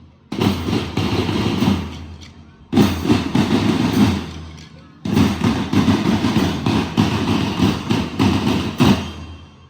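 School marching band playing a rhythmic passage that comes in three separate bursts, each starting abruptly and then fading, the last dying away near the end.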